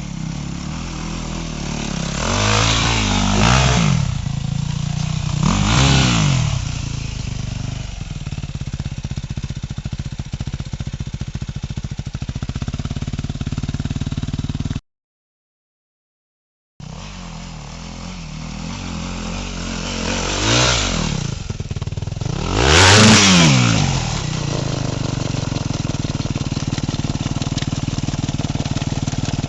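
Enduro dirt bike engine running steadily and revved up and back down in four short blips: two in the first few seconds and two in the second half. Midway it cuts to silence for about two seconds.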